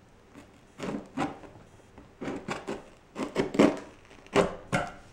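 Scissors cutting through the packing tape on a cardboard mailing box, with the box scraping and crinkling as it is handled: a run of irregular scraping strokes starting about a second in.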